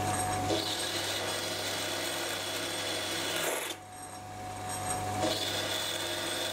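Sieg C3 mini metal lathe running under a steady motor hum while a boring bar cuts inside a bore in a 12L14 steel part. The cutting noise breaks off just under four seconds in and picks up again about a second and a half later.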